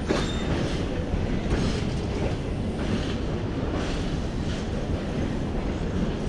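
Passenger coaches of an arriving train rolling slowly past, with a steady rumble and an uneven clack of wheels over the rail joints every half second to a second.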